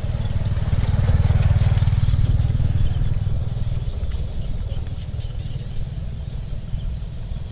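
Motorcycle engine running steadily while riding, a low rumble that swells about a second in and eases off after about three seconds.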